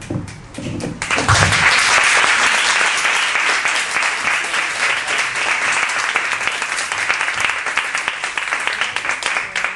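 Audience applauding, starting about a second in and slowly dying down.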